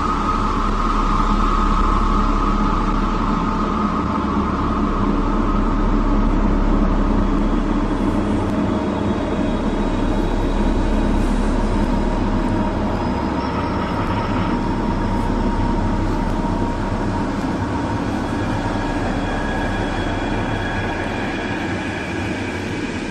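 A steady, dense rumbling noise with faint tones above it that slowly drift in pitch.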